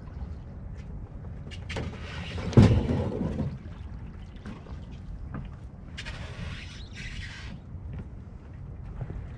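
A small fiberglass sailboat on its trailer rolling off a wet launch ramp into the water, with a loud thump and splash about two and a half seconds in as the hull meets the water. A low rumble runs underneath.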